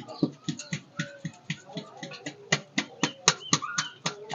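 A round tin flour sieve shaken and tapped by hand over a brass plate while wheat flour is sifted: a quick, irregular run of sharp taps and knocks, about four a second.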